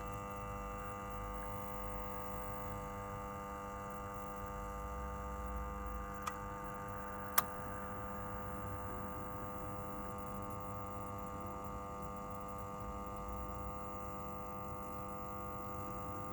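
Wallstar oil boiler's burner running with a steady hum as it tries to fire up after the reset button is pressed, with two sharp clicks about six and seven seconds in. The boiler is failing to light, which the owner suspects is caused by an air bubble in the oil line.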